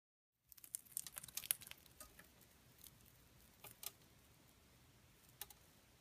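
Pacific parrotlet husking millet seeds off a spray with its beak: a quick run of small sharp cracks and clicks starting about half a second in and thickest over the next second and a half, then a few scattered single cracks.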